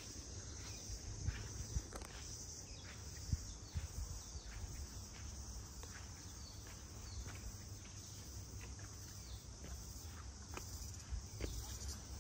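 Steady high-pitched chorus of insects, with soft footsteps on grass.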